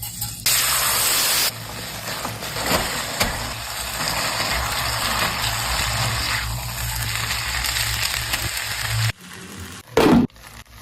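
Food frying in a hot pan. A loud burst of sizzling about half a second in settles into a steady sizzle over a low hum, then stops about nine seconds in. A short, louder sound comes near the end.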